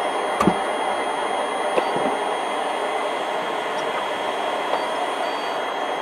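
Steady hiss and whine of machinery inside a cargo aircraft's hold, with a couple of short knocks about half a second and two seconds in.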